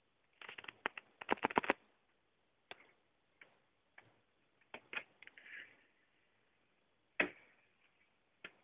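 Clicks and taps of a wooden picture frame being handled and swung open as the door of a hidden in-wall cabinet, with a louder knock about seven seconds in.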